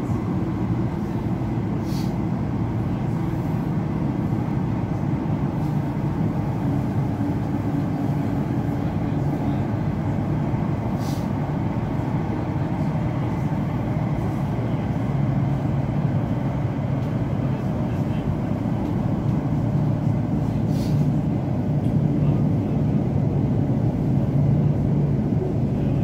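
Class 345 electric train running at speed through a tunnel, heard from inside the carriage: a steady low rumble with a hum, and a few faint clicks.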